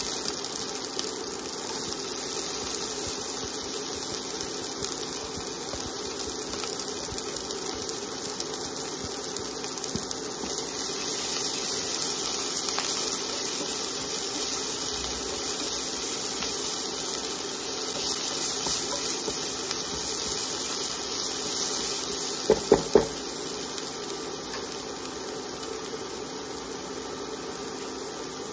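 Onion, garlic and ginger sizzling steadily in hot oil in a nonstick wok as a silicone spatula stirs them, with three quick knocks close together about three-quarters of the way through.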